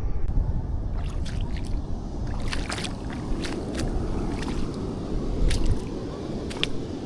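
Shallow sea water sloshing and splashing among rocks at low tide: a string of short, sharp splashes from about a second in, over a steady low rumble of wind on the microphone.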